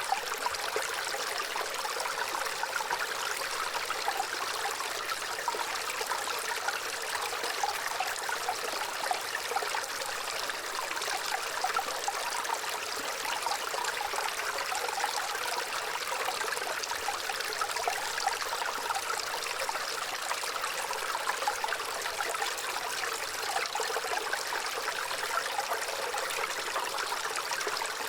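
Small stream of water running and trickling steadily, with fine bubbling splashes.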